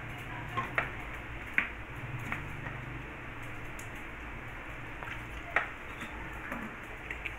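A spoon clinking against a bowl five or so times at uneven intervals while raw chicken pieces are stirred in their marinade.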